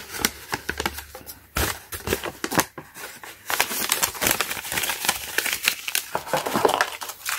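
Paper instruction sheet rustling and crinkling as it is handled and folded up, a dense run of irregular crackles that cuts off suddenly at the end.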